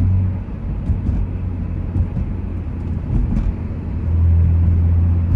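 A car's engine and exhaust running under way with road rumble. From about four seconds in it settles into a steady, louder low drone.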